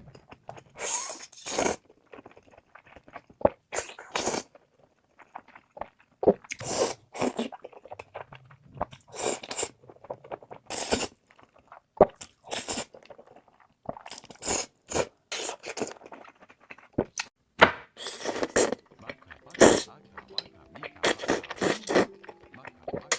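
Eating sounds close to the microphone: bites, crunching and chewing come in short, irregular bursts, some of them crisp and bright.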